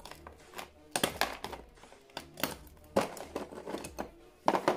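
Pliers working at the broken ceramic body of a ceramic heat emitter bulb: irregular sharp clicks, scrapes and small crunches of ceramic, strongest about a second in and again about three seconds in.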